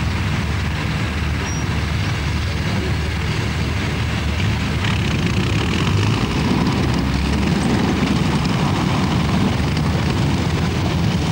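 PTS tracked amphibious transporter's diesel engine running steadily, a low rumble that grows a little louder about halfway through.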